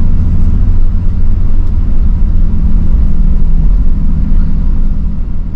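Off-road vehicle driving, a loud steady low rumble of engine and drivetrain with a constant low drone.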